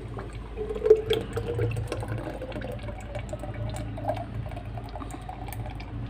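Thick cooked mango squash syrup pouring from a pan into a glass jug, with a few light clicks.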